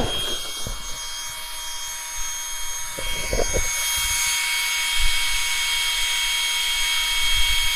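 Small electric cooling fans on an RC truck's motor and speed controller running, a steady high whine with an airy hiss, keeping the motor cool after a hard run.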